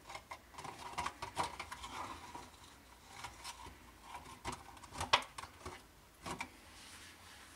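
Light rustling with scattered plastic clicks and taps from a hand handling a small plastic feeder-insect tub, with a few sharper clicks about a second and a half, four and a half, five and six seconds in.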